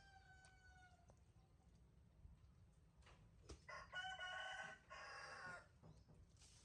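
A rooster crowing faintly: the tail of one crow fades about a second in, and a louder crow in two parts follows near the middle.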